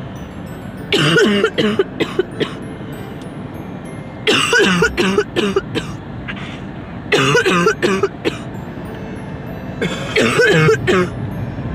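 A high-pitched voice giving short, wavering sounds in bursts about every three seconds, over steady road noise inside a moving car.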